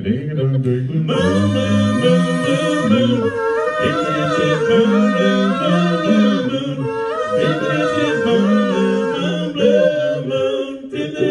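Four-man male a cappella group singing in close harmony into microphones, with no instruments; a low bass voice carries a moving line underneath, and a bright high lead voice comes in about a second in.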